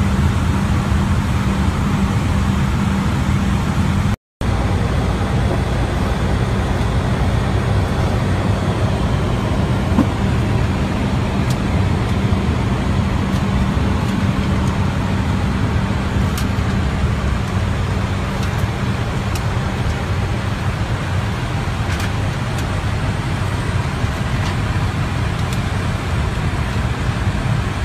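Steady rushing noise and low drone inside an aircraft cockpit in flight: airflow and engine noise, with a steady low hum. The sound cuts out for a moment about four seconds in.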